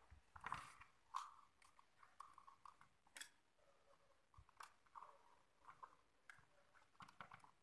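Faint, scattered clicks and light scrapes of a screwdriver and small parts being handled against a chainsaw's plastic and metal housing, with the sharpest click about three seconds in.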